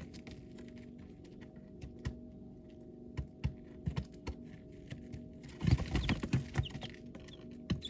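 Baby chicks pecking and scratching in their bedding: scattered light taps, then a busy flurry of scratching about six seconds in with a few faint peeps. A steady low hum runs underneath.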